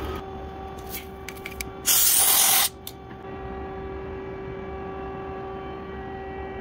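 Milling machine running with a steady hum, with a few light clicks in the first two seconds and a short, loud hiss about two seconds in that lasts under a second.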